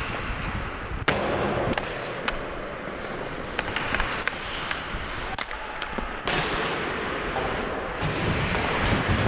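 Ice hockey skates scraping on rink ice under a steady hiss, with sharp clacks of sticks and puck at irregular intervals, about eight of them.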